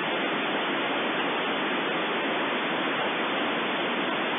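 Steady, even hiss of unsquelched band noise from a WinRadio WR-31DDC receiver tuned to the 27 MHz CB band, heard between transmissions with no station on the channel.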